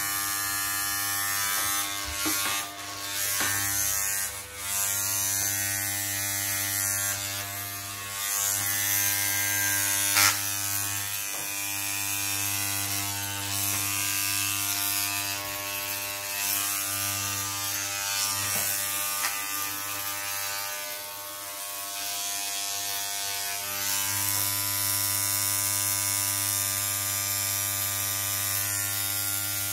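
Corded electric hair clippers buzzing steadily while trimming a man's own hair, with a sharp click about ten seconds in.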